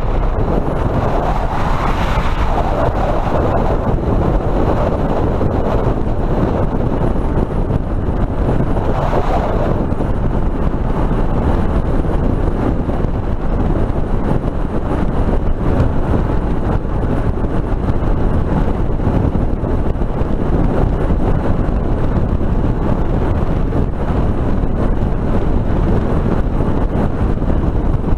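Suzuki DR650 motorcycle ridden at highway speed: a steady rush of wind over the helmet camera's built-in microphone, mixed with engine and road noise.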